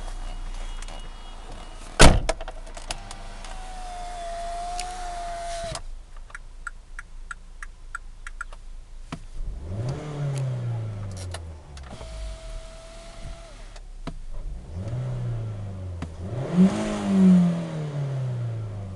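Opel Vectra C 1.8 GTS's four-cylinder petrol engine idling and revved three times, each rev rising and falling, the last the highest at about 5,000 rpm. A sharp knock about two seconds in is the loudest sound, and a steady whine is heard twice between the revs.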